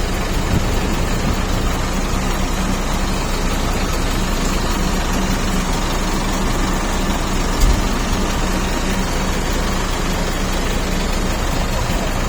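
DH17 bulldozer's diesel engine running steadily at a low, even pitch, with a single thump about two-thirds of the way through.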